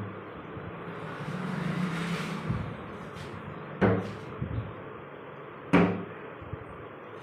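Two sharp knocks about two seconds apart over a steady low hum, with a brief swell of hissing noise about two seconds in.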